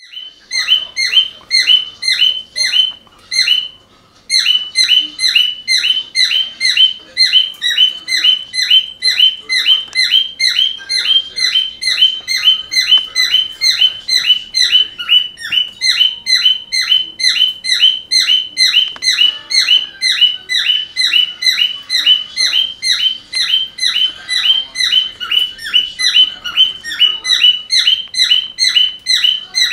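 Cockatiel mimicking a car alarm: a fast, even run of short falling chirps, about three to four a second, with a brief pause about four seconds in.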